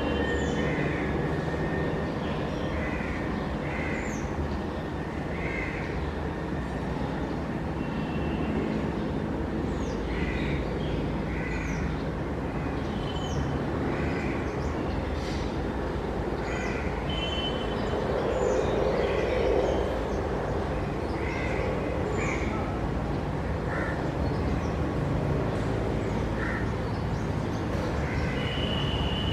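Birds calling in short, repeated notes every second or two, with brief high falling chirps, over a steady low background rumble.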